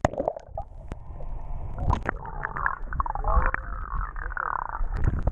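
Sea water heard through an action camera held underwater: muffled sloshing and gurgling with scattered knocks and wavering tones, nothing crisp or high in it.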